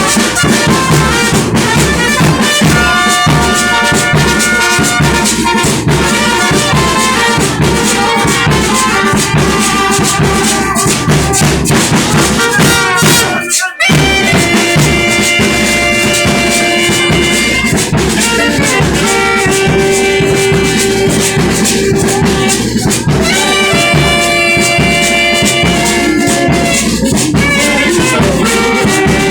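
Loud dance music played with brass instruments, drums and rattles, held horn notes over a steady beat. It breaks off for a moment about halfway through, then carries on.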